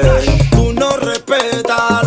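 Music with deep bass notes under a pitched melody.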